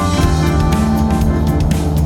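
Music: electric harp played through a BL-52 phase repeater pedal, a delay inside a phaser, with the harp's bass strings through a drive pedal, over a drum kit.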